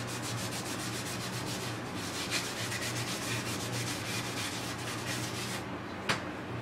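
Rapid rubbing strokes of an abrasive pad against the painted mask, about eight a second, pausing briefly and then going on before stopping. A single sharp click follows near the end.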